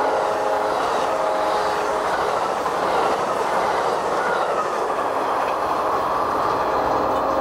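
Amtrak Superliner passenger cars running past at speed: a steady rush of wheel and rail noise with the clatter of wheels on the track.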